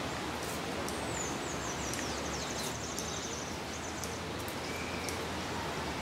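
Steady outdoor background noise. A bird sings a high, rapid trill that slowly falls in pitch, starting about a second in and lasting about two seconds, followed by a short chirp later on.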